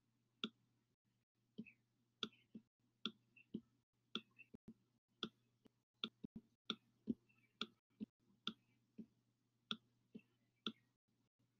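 Faint, sharp clicks at an irregular pace of about two a second: a stylus tapping on a tablet screen while handwriting. A faint steady low hum sits underneath.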